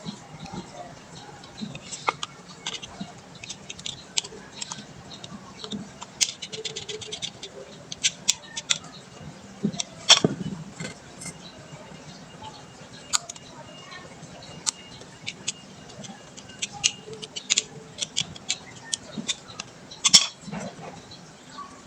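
Scattered sharp clicks and clinks of hand tools and metal parts during brake caliper work, with a short fast run of even clicks about six seconds in. There are louder knocks about ten seconds in and again near the end.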